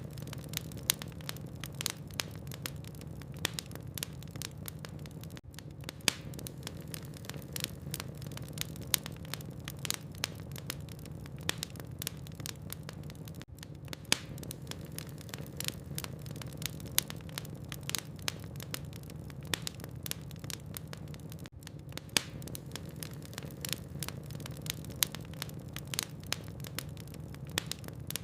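Wood fire in a fireplace crackling steadily, with many irregular sharp snaps and pops from the burning logs over a steady low rumble.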